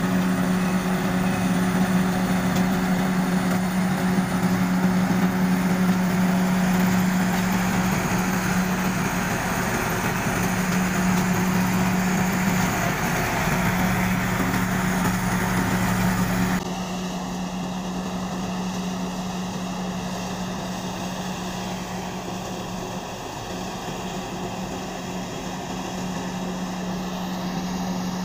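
Rice combine harvester's diesel engine and threshing machinery running steadily under load, with a constant low hum and a rushing hiss above it. A little over halfway through the sound drops in level and turns duller, the machine now far off across the field.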